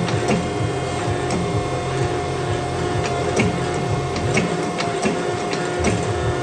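Steady machine hum with irregular sharp knocks, about one or two a second.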